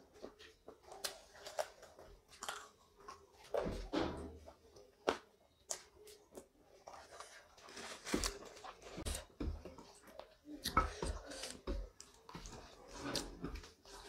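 Close-miked chewing and mouth noises of a person eating rice and chicken curry by hand: irregular wet smacks and clicks.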